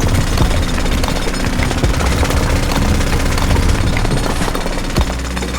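A small motor-driven machine running with a fast, steady clatter.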